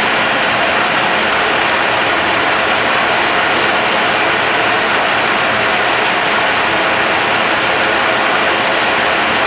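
Rebuilt Eaton Fuller RTLO-18913A 13-speed truck transmission spinning on a dynamometer test stand, a loud, steady running noise with no change in speed.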